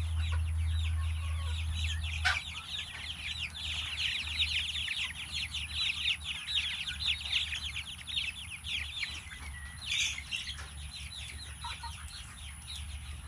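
Young chickens peeping: many rapid, overlapping high peeps that fall in pitch, thickest through the middle, with a louder call about ten seconds in. Under them is a low steady rumble that drops after about two seconds.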